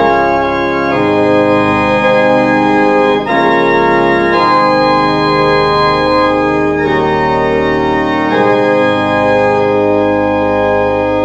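Organ music: sustained full chords that change every second or two.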